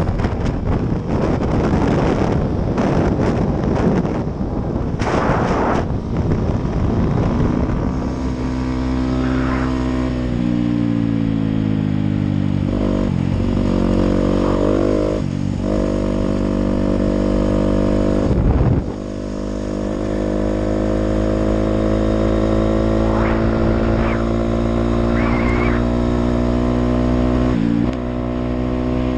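Dirt bike engine running while riding on the road. Its note rises and falls with the throttle and drops sharply twice. For the first several seconds a heavy rushing noise, typical of wind hitting the microphone, nearly covers the engine.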